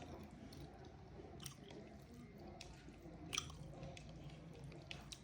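Soft wet chewing of a mouthful of rice and curry, with a few short sharp clicks of the mouth, the loudest about three and a half seconds in.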